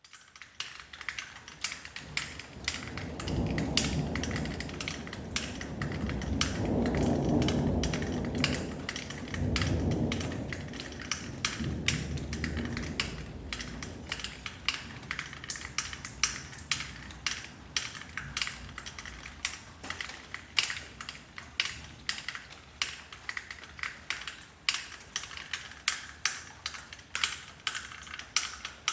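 Rain falling in sharp, irregular drips that click like typing, with a long rumble of thunder starting about three seconds in, swelling twice and fading out about halfway through.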